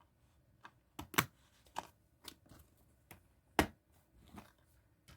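Irregular sharp plastic clicks and knocks, about nine in all, from a movie disc case being handled and closed. The loudest come a little after one second in and about three and a half seconds in.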